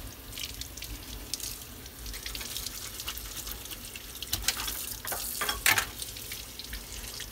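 Kitchen faucet running onto a whole fish being rinsed by gloved hands in a sink, a steady splashing hiss. A few sharp knocks come as the fish is handled in the basin, the loudest about three-quarters of the way in.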